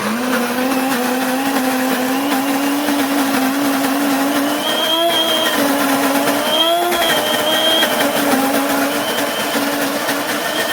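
Mr. Coffee Café Grind electric burr coffee grinder switching on suddenly and running steadily, a motor hum with a dense grinding hiss over it.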